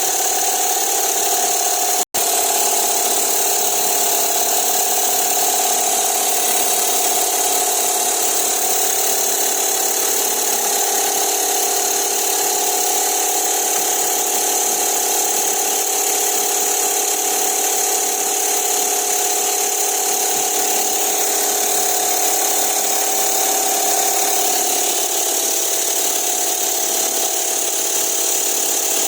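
A steady, loud mechanical running noise from a motor or engine, with a constant hum and hiss, cut off for an instant about two seconds in.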